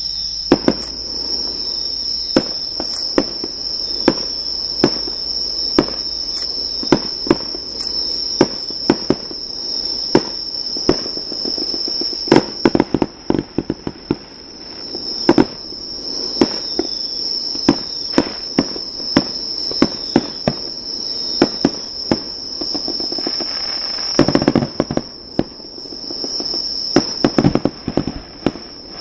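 Fireworks going off in a long run of sharp bangs and crackles, one or two a second, thickening into quick flurries twice. A steady high-pitched insect chorus sings underneath throughout.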